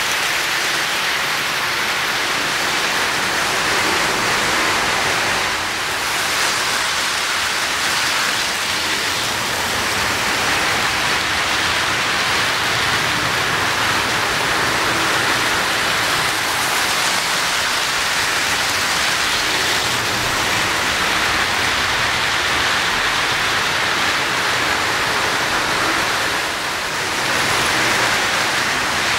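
Lionel O-scale three-rail model train rolling past on the track: a steady, even rushing noise of metal wheels on rail and running motors.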